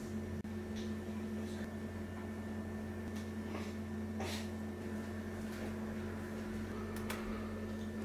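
Quiet, steady low hum with a few faint, scattered ticks: an HP HDX 16 laptop running as it boots into Windows.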